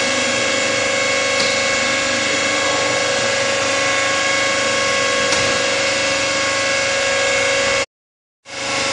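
Concrete block-making line machinery running: a steady mechanical drone with fixed whining tones. The sound cuts out abruptly for about half a second near the end, then returns unchanged.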